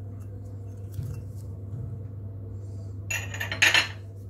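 Two short bursts of clinking and clattering about three seconds in, as a metal-rimmed jar and utensil knock against a steel mixing bowl. A steady low hum runs underneath.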